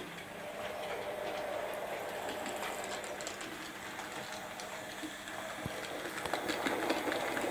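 Model OO gauge tank locomotive running with three coaches: a faint steady motor hum and the wheels clicking over the rails, growing louder near the end as the train approaches.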